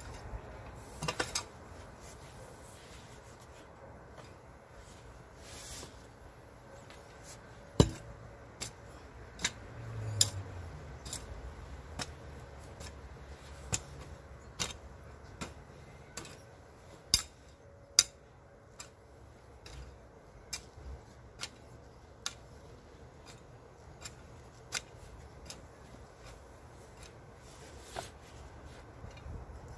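A long-handled garden hoe chopping into soil: irregular sharp strikes of the metal blade, roughly one every second or two.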